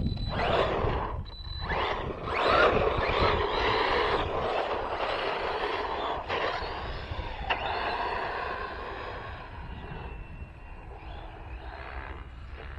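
Arrma Granite 4X4 RC truck driving on 2S power: the electric motor whines and the tyres churn over the ground, surging with the throttle. It grows fainter toward the end.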